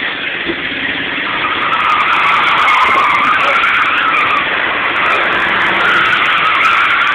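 Car tires squealing in a drift slide, a wavering high squeal that builds over the first couple of seconds and then holds, heard from inside the car's cabin.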